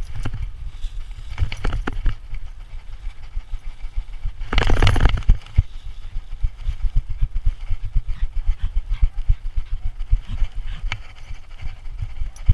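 Handling noise from a GoPro mounted on a walking dog: low rumble and quick, fairly even thumps as the camera and its mount jostle with the dog's steps. About four and a half seconds in, a louder scraping rush lasts about half a second.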